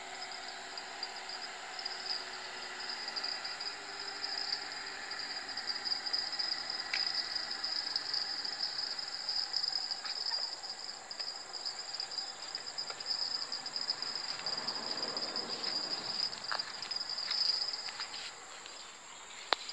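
Insects chirring steadily at a high pitch, with a few faint clicks.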